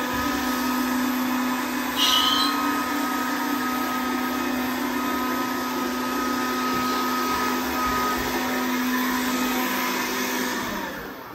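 Kärcher WV1 cordless window vacuum running with a steady motor hum and whine as it sucks water off a wet glass bath screen, with a brief high squeak about two seconds in. The motor dies away near the end.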